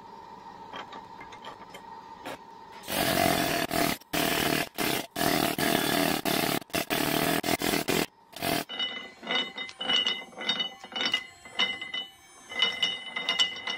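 Pneumatic needle scaler running in several bursts from about three seconds in, stopping and starting as it hammers rust off the old shop crane. After that comes a run of rapid metallic clicking and clattering from the crane's big rusty spur gear and gear train turning.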